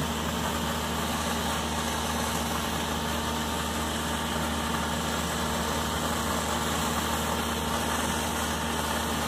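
Guniting: the pressure pump's engine runs steadily at constant speed under an even hiss of concrete spraying from the hose nozzle.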